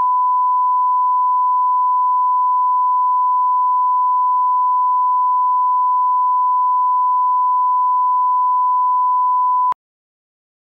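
Steady 1 kHz line-up tone, a single pure beep held for nearly ten seconds with the colour bars as an audio level reference, cutting off suddenly near the end.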